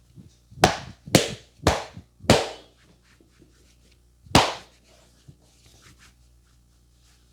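Loud hand slaps on a person's head or body during a barber's massage: four strikes about half a second apart, then a fifth about two seconds later.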